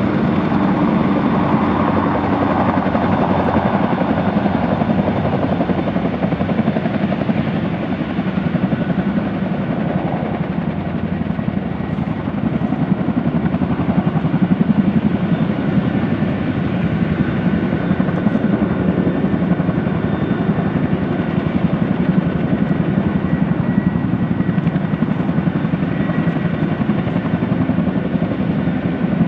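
Boeing CH-47D Chinook tandem-rotor helicopter running on the ground, its two rotors turning with a fast, steady blade beat over the whine of its turbine engines as it taxis. The level dips slightly about ten seconds in and builds again.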